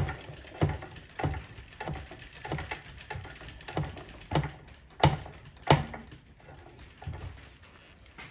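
A steady series of sharp knocks, about one every 0.6 seconds, with the two loudest a little past halfway and the knocks growing fainter near the end.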